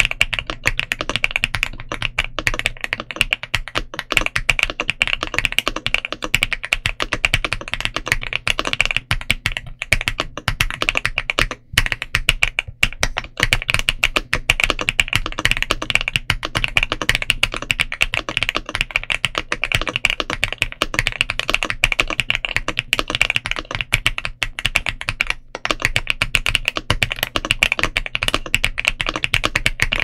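Fast, continuous typing on an Ajazz AC100 mechanical keyboard fitted with Butter Ice Cream linear switches and double-shot PBT Cherry-profile keycaps: a dense, even run of keystroke clacks, with a brief pause about a third of the way through.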